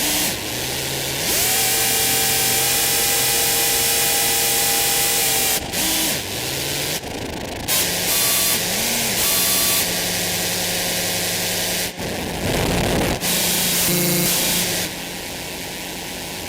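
Qun mk2 synthesizer sounding noisy drone tones that change abruptly every second or few as its settings are altered: hiss layered with steady tones and low hums.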